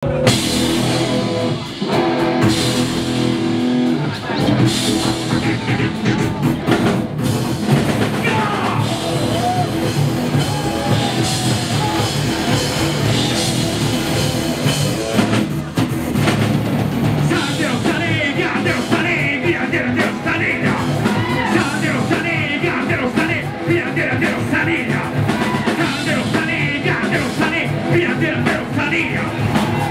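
Rock band playing live at full volume: drum kit, electric guitars, bass and keyboard. A high wavering lead line comes in about eighteen seconds in.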